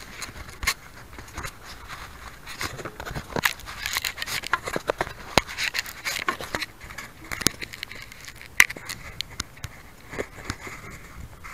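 Irregular clicks, taps and scrapes of handling right against a keychain camera's microphone, with no steady motor sound.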